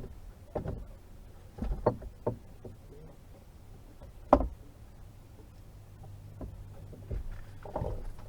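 Scattered knocks and clunks, the loudest a sharp knock about four seconds in, with a low steady hum setting in about halfway through.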